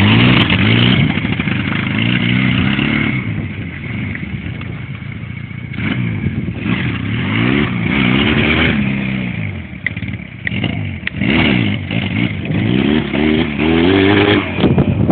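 Barossa 250cc quad bike engine revving hard in about three rising surges, the pitch dropping back between them, as the quad is accelerated to lift its front wheels into a wheelie.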